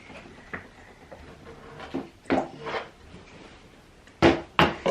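Several short knocks and clicks of plastic bottles and containers being handled and set down on a table, the two loudest near the end.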